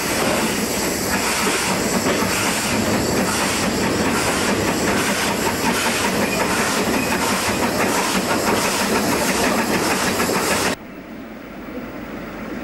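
Ex-South African Railways NG15 2 ft gauge steam locomotive working hard, heard close from on the train: steady exhaust and running noise with a faint regular beat and the clatter of the wheels. About eleven seconds in it drops suddenly to the quieter sound of the train heard from further off.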